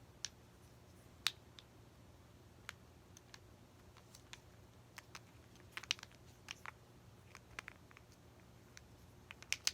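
Faint, irregular clicks and taps as a fidget toy is handled and played with, a few at a time, with small clusters around the middle and near the end.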